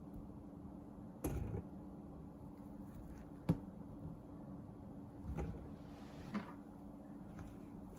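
Kitchen handling sounds: a few separate knocks and light clunks, the sharpest about halfway through, over a steady low hum.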